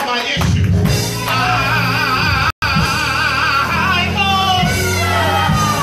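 Live gospel worship music: singers on microphones over a band's steady low accompaniment, one voice wavering on a held note. The sound cuts out completely for an instant about halfway through.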